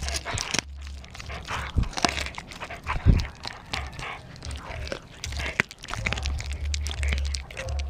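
Pitbull–German shepherd mix chewing a raw turkey neck: irregular crunches of bone and gristle and wet mouth sounds. The loudest crunch comes about three seconds in.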